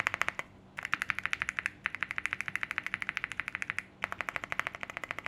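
Keys on a Zoom75 mechanical keyboard tapped over and over, fast and evenly at about ten strokes a second, in runs broken by a few short pauses.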